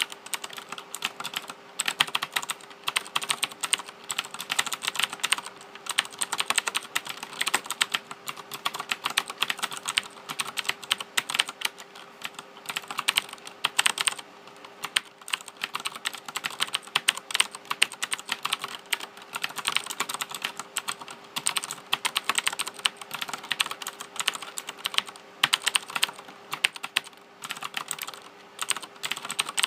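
Fast, continuous typing on a Razer BlackWidow 2013 mechanical keyboard: rapid runs of key clacks broken by short pauses.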